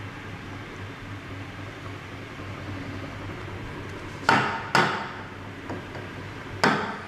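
Stainless steel milk pitcher of freshly steamed milk knocked on the counter to settle the foam: two sharp knocks close together about four seconds in and a third near the end, over a low steady hum.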